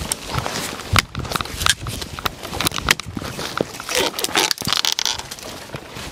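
A small axe chops into a dead branch, with a sharp strike about a second in and more knocks after it. The branch is then wrenched loose and dragged through dry leaves and twigs, crackling and rustling.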